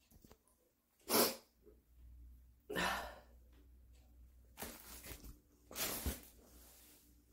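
A woman's short breathy bursts through the nose and mouth: a sharp, loud one about a second in, then several longer exhales a second or two apart.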